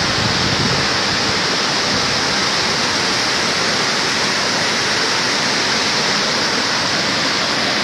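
Floodwater rushing in a swollen river: a loud, steady roar of water.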